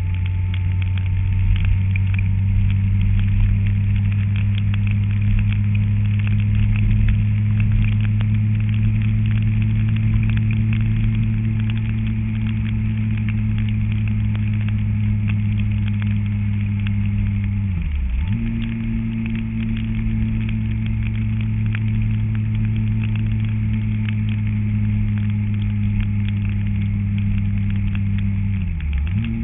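An engine running at a steady speed, a constant low drone, its pitch dropping sharply and coming back twice: about two-thirds of the way through and again near the end.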